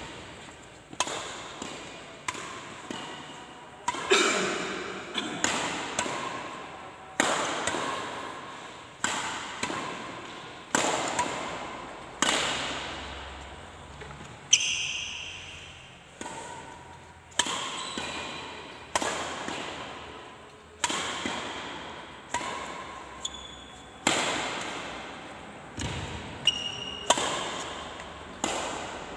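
Shuttlecock hit back and forth with badminton rackets in a steady rally, about one sharp smack a second, each echoing in a large hall. A few brief high squeaks come in between hits, from shoes on the court.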